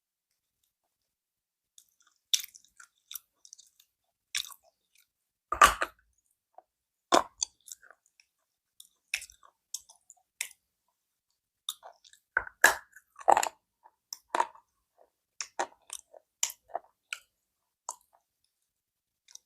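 Close-miked crunching of slate pencils being bitten and chewed: sharp, brittle cracks at irregular intervals, with a few louder bites, starting about two seconds in.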